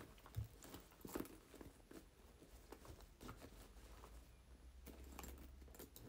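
Near silence broken by faint scattered clicks and rustles of small objects being handled, with a soft low thump about half a second in.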